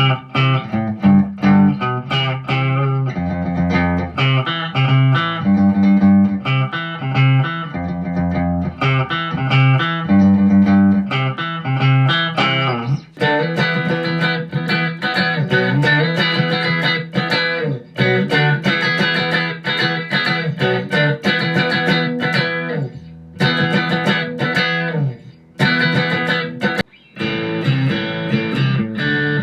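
Electric guitar played through the M-VAVE MK-300 multi-effects unit, running through its presets with picked notes and chords; about halfway through the tone turns denser and brighter, and there are a couple of brief gaps near the end.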